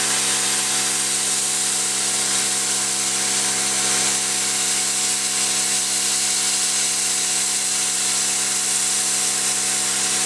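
Plasma cutter cutting steel: a steady hiss of the air-plasma arc over an even electrical hum, running without a break.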